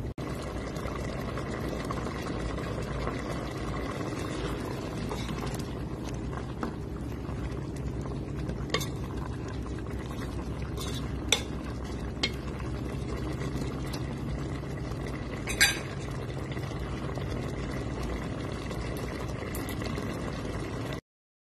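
Chicken curry simmering in a pot over a steady low hum, with about five sharp clinks scattered through, like a utensil touching the pot. The sound cuts off suddenly near the end.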